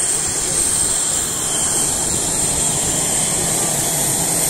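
CF-18 Hornet fighter jet taxiing on the runway, its twin turbofan engines giving a steady high whine over a rushing roar.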